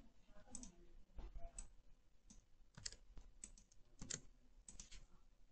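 Computer keyboard typing: faint, irregular key clicks as a password is keyed in.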